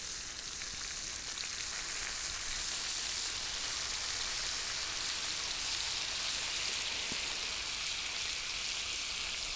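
Whole flounder frying in hot oil in a pan with half a lemon pressed onto it, giving a steady sizzle.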